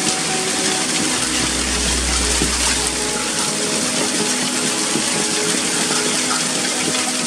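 Heavy rain mixed with hail pouring down onto roofs, a dense, steady hiss. A deep low rumble joins it for about two seconds near the start.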